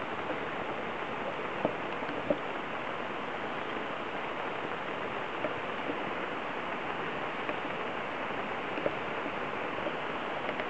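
Heavy rain pouring steadily onto trees and a lawn: a dense, even hiss. A few sharp single taps stand out briefly now and then.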